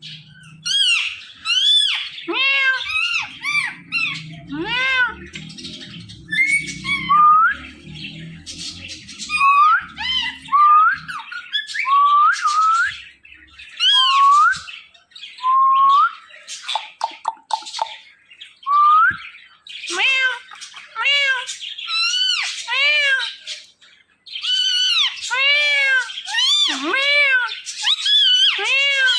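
Ring-necked parrots squawking and chirping: a continuous run of short, sharp pitched calls with a brief lull about three-quarters of the way through.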